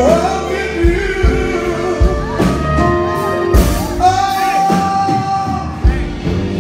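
Live band with a male lead singer belting through a microphone over bass and drums, holding one long note in the second half.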